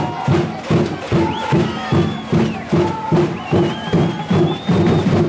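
Music from the stands at a football game: a drum beating steadily about two to three times a second, with pitched horn-like notes on the beat, over crowd noise, and a few high wavering whistles over it.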